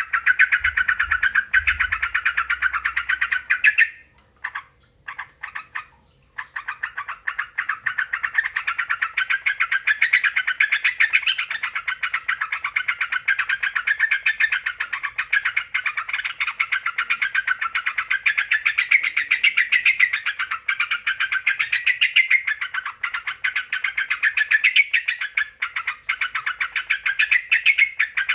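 Yellow-vented bulbul (trucuk) singing a fast, continuous chattering song, broken by a short pause with a few separate notes about four seconds in. This is a lure song played to provoke a caged bulbul into answering.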